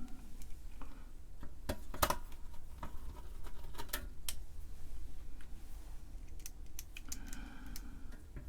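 Irregular light clicks and taps of the 8-inch floppy drive's circuit board being refitted, with its connectors pushed on and screws put in.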